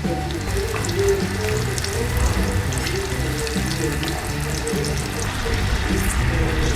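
Background music over a steady hiss with small scattered crackles.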